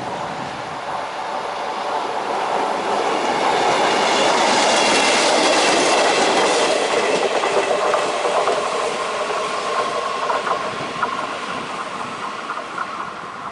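A ČD Regionova diesel railcar set passes over a level crossing, its wheels clattering over the rail joints. It builds up, is loudest in the middle, and fades away as it leaves.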